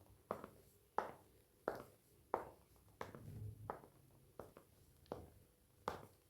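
Footsteps walking at a steady pace on a hard floor, about three steps every two seconds, each a short sharp knock.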